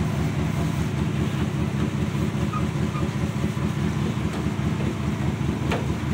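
Chrysler 383 big-block V8 idling steadily; the engine is somewhat worn and has an exhaust leak where the pipe leaves the rotted-out muffler.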